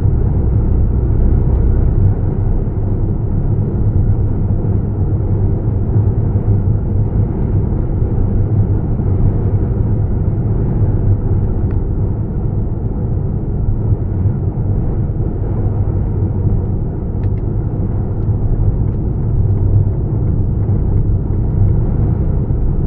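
Steady engine and road noise heard from inside a moving vehicle's cabin: a constant low rumble that holds even throughout.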